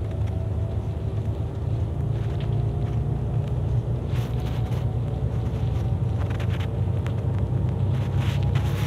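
Bus engine and road noise heard inside the cabin: a steady low rumble with a faint whine that slowly rises in pitch as the bus gathers speed, and a few faint clicks.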